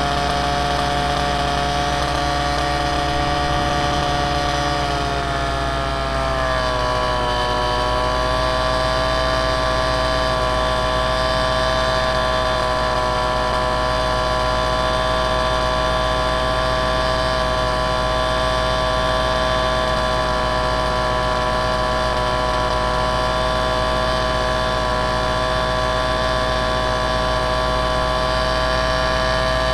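Motor of the aircraft carrying the camera, a steady whine made of many tones that drops slightly in pitch about five to seven seconds in, then holds steady.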